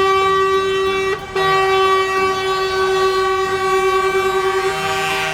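Electronic horn tone sounding in two long, steady blasts: the first cuts off about a second in, and the second starts straight after and holds until near the end.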